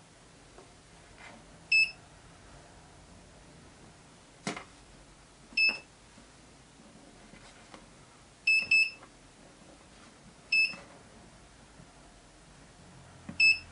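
Keypad beeps from a YIHAO VM600-2 two-axis digital readout: six short, high beeps at uneven intervals, two of them in quick succession about two-thirds of the way through, each confirming a key press as the axis travel direction is set. A single click sounds a little before the halfway point.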